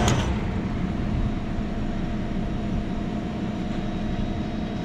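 A sharp click as the power to a refrigerated prep table is cut, and the compressor's loud hum, laboring against high head pressure from a liquid line restriction at the expansion valve, drops away within the first second. A steady low rumble remains.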